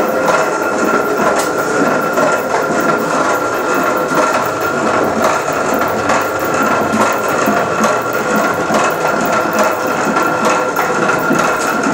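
Traditional windmill running: the wooden gearing and millstones make a fast, continuous clatter with a steady high tone over it.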